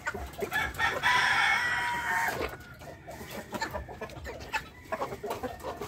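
A rooster crows once, about a second in, the crow held for about a second and a half. Hens cluck around it, with short rustles and rattles as leafy branches are pushed into the wire cages.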